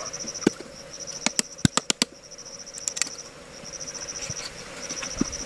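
Cricket-like insect chirping: repeated trills of rapid high pulses, each lasting about a second. A quick series of sharp clicks and taps falls about a second and a half in.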